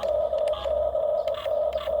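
Small electric motor and gearbox of a toy RC construction vehicle whining steadily, stopping and restarting briefly a few times as the controls are worked.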